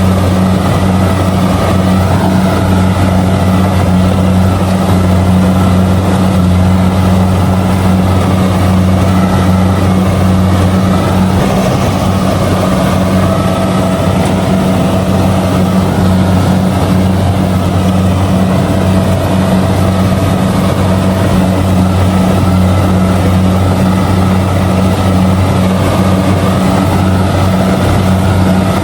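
Kubota DC70G combine harvester's diesel engine and threshing machinery running steadily under load while harvesting rice, a constant loud drone.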